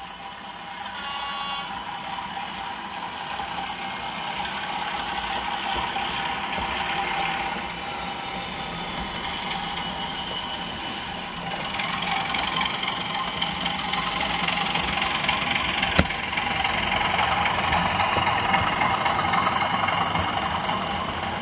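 OO gauge model diesel locomotive's DCC sound decoder playing a diesel engine through the model's small speaker, mixed with the train's wheels running on the track, growing louder as the train approaches and passes. A brief high tone sounds about a second in, and there is one sharp click later on.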